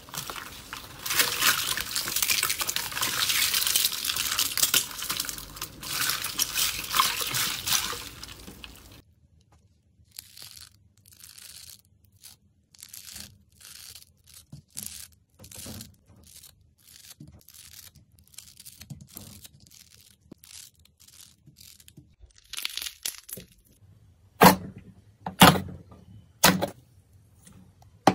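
Slime worked by hand: dense crackling for about the first nine seconds, then a run of separate soft pops and clicks, with a few loud sharp snaps near the end.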